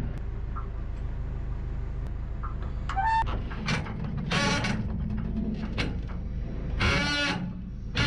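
Backhoe's diesel engine running steadily, with a few short metallic squeals and screeches as the boom swings; the loudest come about three, four and a half and seven seconds in.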